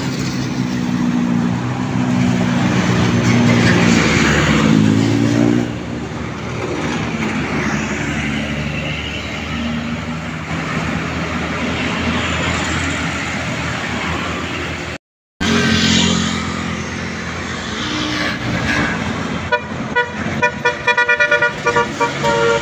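Indonesian bus 'telolet' multi-tone horns on a passing bus, loud throughout. In the first few seconds there are held low pitched tones that rise briefly. After a short break in the sound, near the end, there is a fast run of short horn toots.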